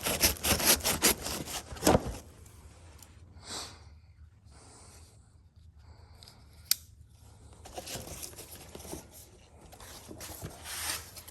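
A knife cutting and tearing through the packing tape on a cardboard shipping box, a quick run of loud scraping strokes over the first two seconds. Quieter rustling and handling of the cardboard follow, with a single sharp click partway through.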